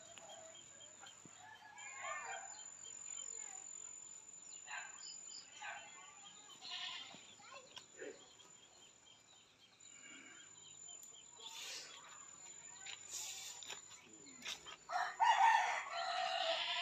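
Rooster crowing, faint at first, with a louder, longer crow near the end.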